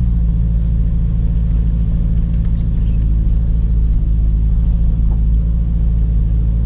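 A car's engine running steadily with a low rumble; its note shifts right at the start.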